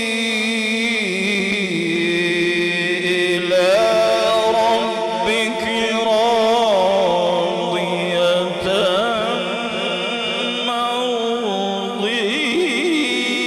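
A man reciting the Quran in the melodic tilawat style through a microphone: long held notes with wavering, melismatic ornaments. The voice steps up to a higher pitch about three and a half seconds in.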